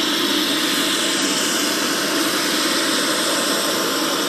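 UH-60 Black Hawk helicopter running: a loud, steady rush of turbine and rotor noise.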